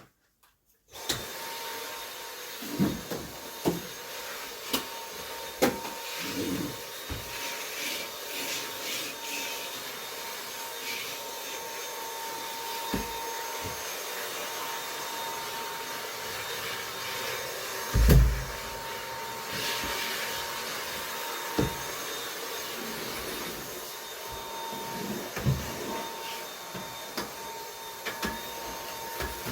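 Dyson vacuum cleaner switched on about a second in, then running steadily with a thin whine over its airflow hiss. Scattered knocks and thumps come through as it is used, the loudest a little past halfway.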